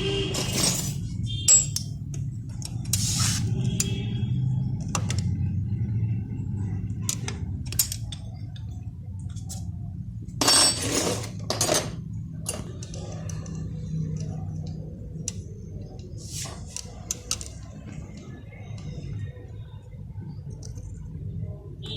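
Small metal hand tools (nose pliers and a wrench) clicking and clinking against the valve tappet adjuster and lock nut of a Hero Honda CBZ Xtreme's cylinder head as the nut is worked loose, over a steady low hum. One louder, longer scrape comes about halfway through.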